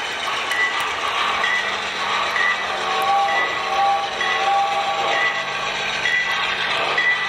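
Model diesel locomotive's sound decoder running, its bell ringing evenly about once a second over a steady engine hum, with the rattle of the model rolling on the track.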